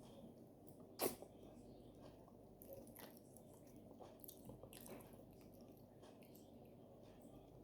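Quiet close-up eating sounds of oat fufu with okra soup: soft wet mouth clicks and smacks, with one sharper click about a second in.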